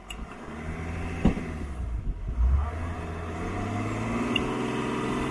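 Land Rover Defender's engine revving under load as its wheels spin in soft sand, the 4x4 bogged down while towing a caravan. The revs climb, ease off, and climb again near the end, with a sharp knock about a second in.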